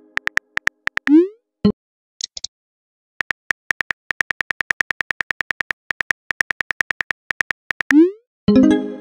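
Simulated phone keyboard key clicks in quick runs of about four or five taps a second, as two text messages are typed. A short rising swoosh marks each message being sent, one about a second in and one near the end. A ringing chime starts just before the end.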